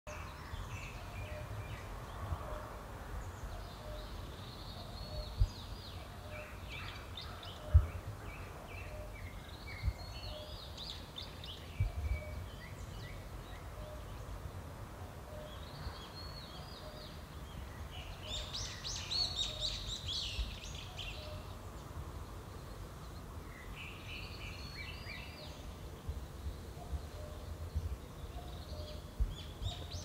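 Birds singing in short bursts of quick, varied chirping phrases, with a pause of a few seconds between bursts. Under the birdsong runs a steady low wind rumble with a few sharp thumps, the loudest about eight seconds in.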